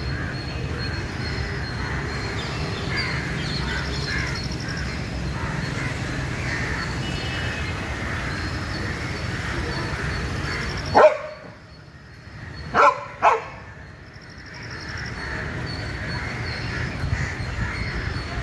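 Dog barking: one sharp bark, then two more in quick succession under two seconds later.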